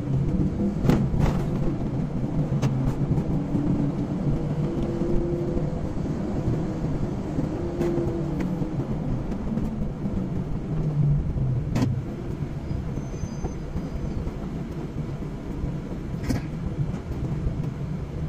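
A car driving along a road: steady engine and tyre rumble, with a few short sharp clicks. It gets a little quieter in the second half as the car slows into a queue of traffic.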